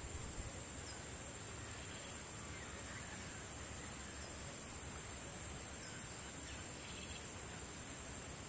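Steady outdoor ambience: a continuous high-pitched insect drone over a low hiss, with a few faint bird calls.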